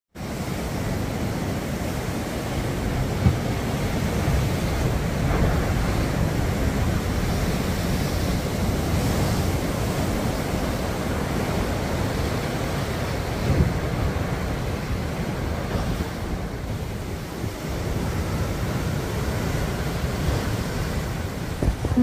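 Heavy swell breaking and crashing on rocky sea stacks, a continuous surging roar of surf with wind buffeting the microphone. There are a couple of brief louder thumps, one about three seconds in and one near the middle.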